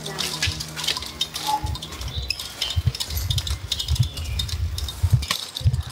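Wheelchair rattling as it is pushed over a rough concrete alley: light metallic clinks and irregular low bumps of the wheels, thickest in the second half.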